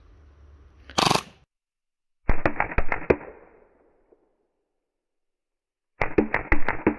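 A short full-auto burst from an Action Army AAP01 gas blowback airsoft pistol comes about a second in. It is followed by two clusters of rapid sharp cracks, duller and cut off in the treble, which are the slow-motion replay of BBs hitting an LCD screen.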